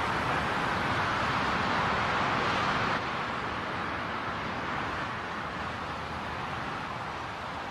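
Steady rushing aircraft noise, stepping down a little in level about three seconds in.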